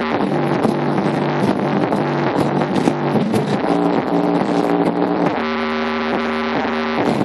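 Drum and bass music played loud through a Creative T6100 computer-speaker subwoofer, set to full bass. The bass line shifts in pitched steps, then holds a chord for about two seconds near the end.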